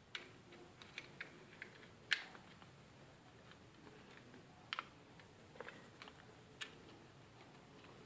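Faint, irregular small plastic clicks and taps from handling a washing machine's plastic lid-lock switch while a cable tie is threaded through it. The sharpest click comes about two seconds in.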